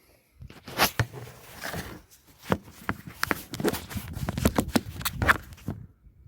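Hands fitting the mass airflow sensor's plastic connector and intake parts: irregular sharp clicks and rustling, which stop shortly before the end.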